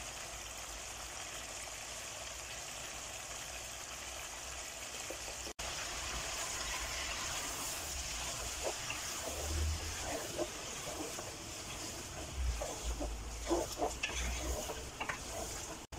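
Spiced chicken pieces sizzling in a pot on the stove with a steady hiss. From about six seconds in, a wooden spatula stirs them, adding scattered knocks and scrapes against the pot.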